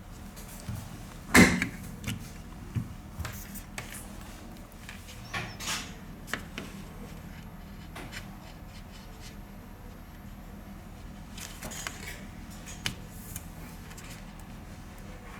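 Scattered clicks and taps of tools and small parts being handled while an HTC 10 phone is taken apart. The loudest is a sharp knock about a second and a half in.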